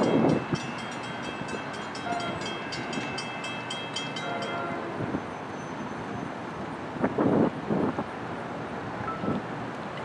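New Jersey Transit commuter train passing on the Coast Line, with a fast, even clatter and a thin ringing tone that stop about four and a half seconds in. Two louder rushes of noise come near the start and again about seven seconds in.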